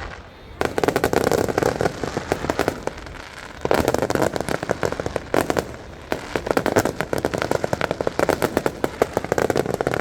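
Aerial fireworks display going off in dense volleys of rapid crackling bangs, each run lasting a couple of seconds, with short lulls between and a fresh volley about half a second, four seconds and six seconds in.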